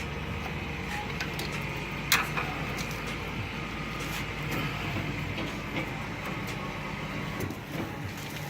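A steady low mechanical hum with scattered light clicks and one sharp knock about two seconds in; the hum stops near the end.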